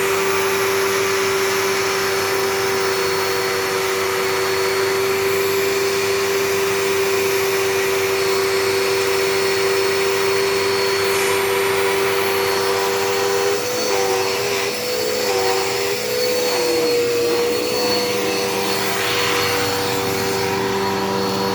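Dirt Devil Endura Reach vacuum cleaner running steadily with a high motor whine and rush of suction air; about two-thirds of the way through its pitch dips and wavers several times, then settles back.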